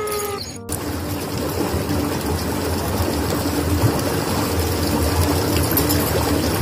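Water gushing steadily from a tube well's concrete outlet standpipe into its trough, with a constant low hum under it. It begins less than a second in, after a brief falling tone that is cut off abruptly.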